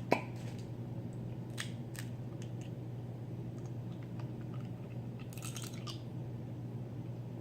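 Eating sounds: chewing with sharp clicks and crackles of snow crab shell being cracked. The loudest is a single snap just after the start, and a cluster of crackles comes about five and a half seconds in.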